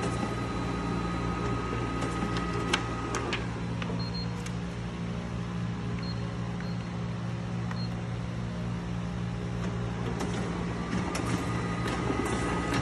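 Riso RZ310UI digital duplicator running: a steady mechanical hum with a high whine that drops out about three seconds in and comes back near the end, plus scattered sharp clicks, one louder click about three seconds in.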